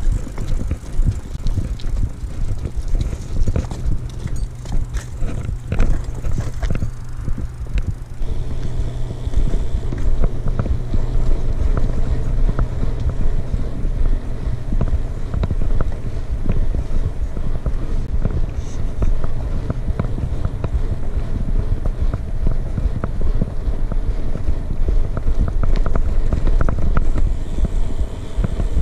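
BMX bike being ridden over cracked asphalt: tyres rolling with a steady low rumble and the bike rattling and clicking continuously over the bumps.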